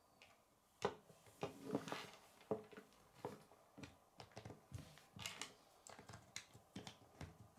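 Plastic K'nex rods and connectors clicking and snapping together in the hands, with light knocks of the parts on a wooden tabletop. Irregular short clicks start about a second in, the first one the sharpest.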